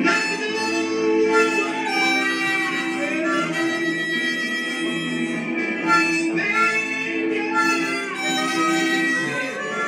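Harmonica played with both hands cupped around it: a continuous melody of held notes and chords, with a few sliding notes.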